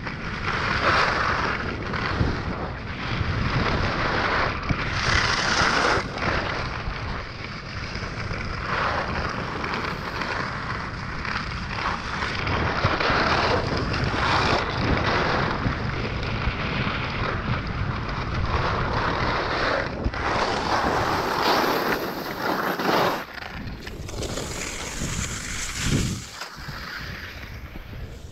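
Wind buffeting an action camera's microphone during a downhill ski run, with the hiss and scrape of skis on packed snow swelling with each turn every second or two. It gets quieter near the end as the skier slows.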